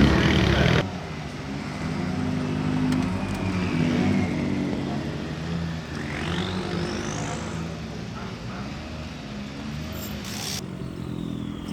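Rally car's engine running under load, its pitch rising and falling as it revs. It is loud at first and drops sharply in level about a second in.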